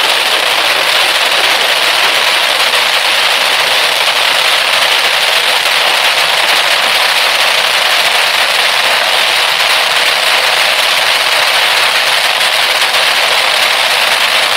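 A crackling coconut firework fountain burning: a dense, unbroken crackle of many small pops over the fountain's hiss.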